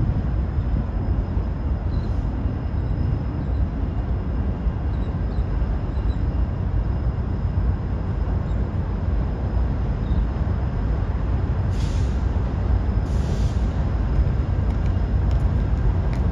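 Freight train approaching across a railroad trestle: the low, steady rumble of the EMD SD60E and GE AC44C6M diesel locomotives and the rolling train, growing slightly louder as it nears. Two short hisses come close together near the end.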